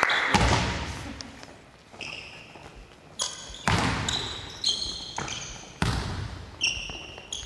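Basketball bouncing on a gym court, three heavy bounces echoing in the hall, mixed with several short, high sneaker squeaks from players moving on the floor.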